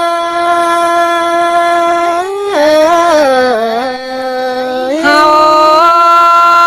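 A single voice singing a Thái (hát Thái) folk song without instruments: a long held note, then a wavering, dipping melismatic passage about two seconds in, then another long held note from about five seconds in.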